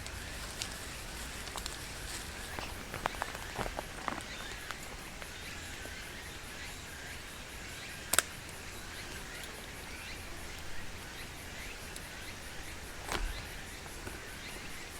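Outdoor ambience: a steady background hiss with a faint high drone, broken by scattered light clicks and knocks, a cluster of them about three seconds in and a single sharp click about eight seconds in.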